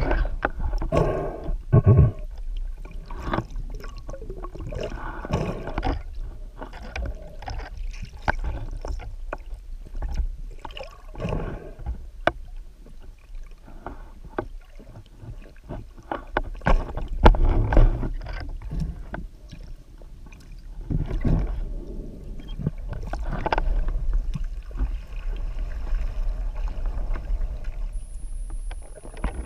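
Underwater water noise: gurgling and sloshing over a steady low rumble, with irregular swells and scattered knocks and clicks as the diver moves near the surface.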